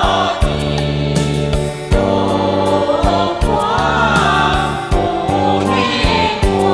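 A song: voices singing a melody over instrumental accompaniment, with a steady beat of about two strokes a second.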